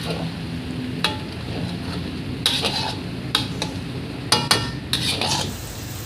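A metal spoon stirring in a metal cooking pot, scraping and knocking against its sides in a string of sharp strokes, some ringing briefly, over a steady low background hum.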